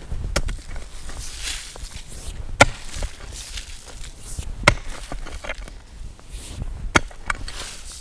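Pick mattock swung overhead and striking rocky soil: four sharp strikes about two seconds apart.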